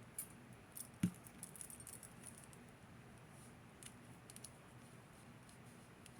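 Faint clicks and light taps of small metal earrings being handled, with one louder knock about a second in.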